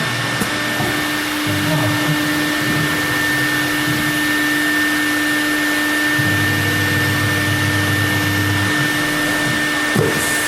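CNC router with automatic tool changer running: a steady spindle whine over a constant airy hiss, with lower hums that start and stop as the machine moves, and a brief knock near the end.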